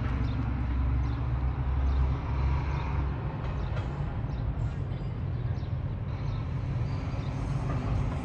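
Steady low rumble of a vehicle engine running, heavier for the first three seconds, over general outdoor background noise.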